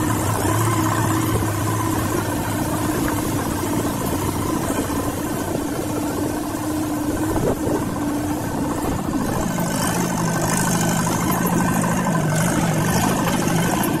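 Off-road vehicle's engine running as it drives slowly along a rough dirt forest track, heard from on board; about ten seconds in the engine note drops lower.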